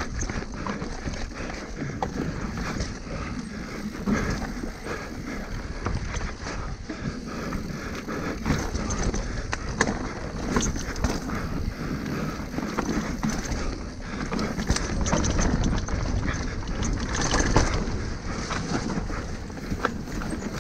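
Mountain bike descending a rocky dirt singletrack at race pace: wind rushing over the microphone, tyres rolling over dirt and stones, and the bike rattling with frequent sharp knocks as it hits rocks and bumps.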